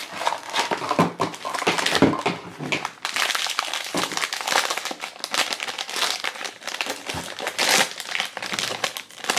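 Pop Mart blind box unboxed by hand: the small cardboard box is opened near the start, then the silver foil bag inside is crinkled and opened. The result is dense, continuous crinkling with many small crackles.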